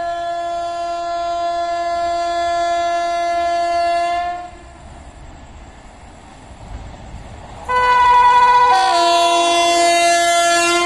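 WAP7 electric locomotive of an oncoming express sounding its horn as it approaches at speed. A long blast of about four seconds is followed by a lull filled with the rumble of the approaching train. A second blast comes near eight seconds in; it starts on a higher tone and drops to a lower one about a second later.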